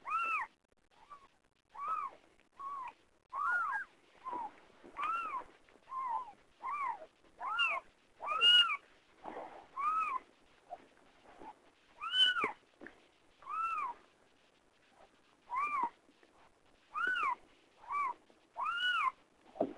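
Newborn kittens mewing: short, high-pitched cries, roughly one a second, each rising and then falling in pitch.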